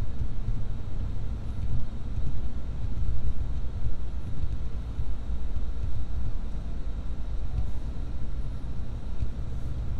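Low, steady rumble of a car's engine and road noise heard from inside the cabin as the car moves slowly through traffic.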